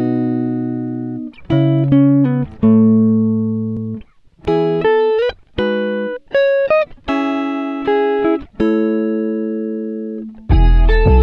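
Background music of plucked strings: slow single notes and chords, each ringing and fading, with short breaks between phrases. A fuller accompaniment with a deep bass comes in near the end.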